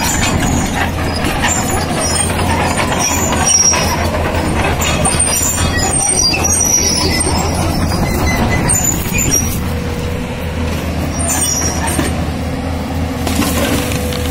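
JCB 205 tracked excavator's diesel engine running steadily under load as the boom and bucket work, with a steady whine joining about ten seconds in and scattered high squeaks.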